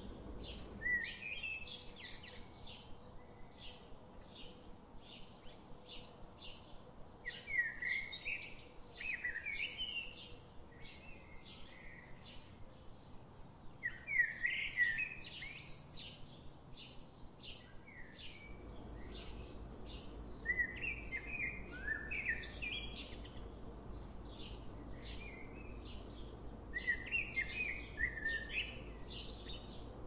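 Wild songbird singing warbled phrases of two to three seconds, about every six seconds, over a steady fast ticking of about three short high notes a second.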